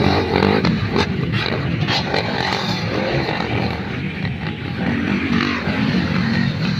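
Several motocross dirt-bike engines running as the bikes race along a dirt track.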